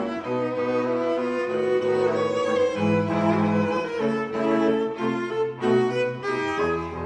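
Background music of bowed string instruments, cello and violin, playing held notes that change every second or so.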